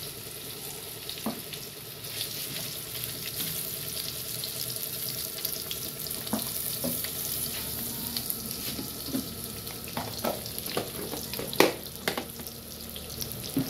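Sliced hot dogs sizzling steadily as they fry in hot oil in a non-stick pan. A few sharp clicks and knocks of a metal spatula against the pan come through, the loudest a little before the end.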